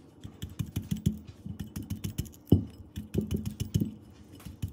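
Fork repeatedly pricking a raw russet potato's skin: a quick, uneven run of soft taps and clicks, with one louder knock about halfway through.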